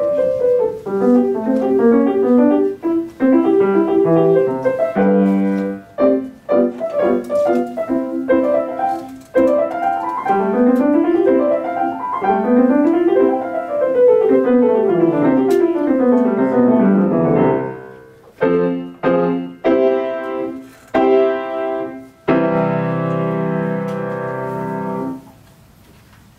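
Steinway grand piano played solo: quick runs of notes sweeping up and down, then a few separate chords and a final held chord that rings for about two seconds before dying away near the end.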